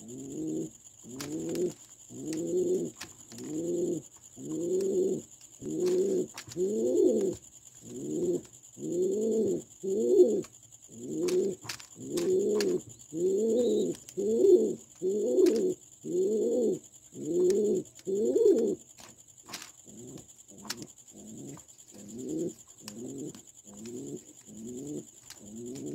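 Domestic pigeon cooing in a long, even series, just over one coo a second, each a low note that rises and falls. The coos grow louder in the middle and turn softer for the last several seconds.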